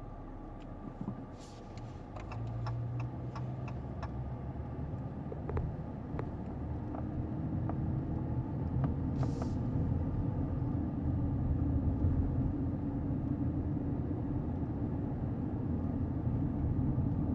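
Car engine running, a low rumble that grows steadily louder, with a steady hum coming in about seven seconds in. A few light clicks sound in the first four seconds.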